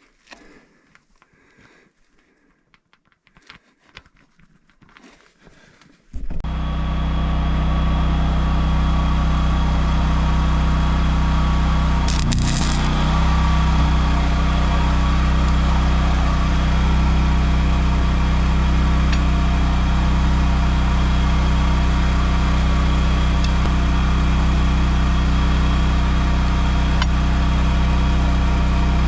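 A few seconds of faint clicks and handling, then an engine cuts in abruptly about six seconds in and runs steadily for the rest.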